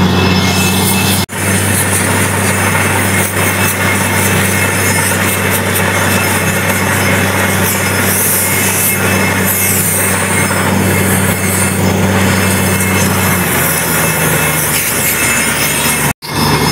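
Truck-mounted borewell drilling rig running hard, a loud steady engine drone with a constant low hum and a hiss over it. About thirteen seconds in, the engine note drops lower.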